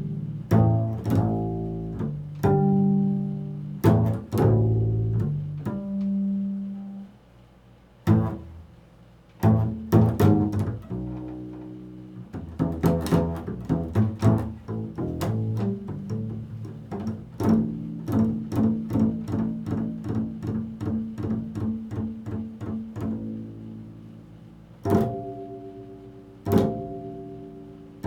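Double bass playing jazz, mostly plucked notes that ring and fade, with a brief lull about seven seconds in, a long run of quick repeated notes in the middle, and two strong single notes near the end.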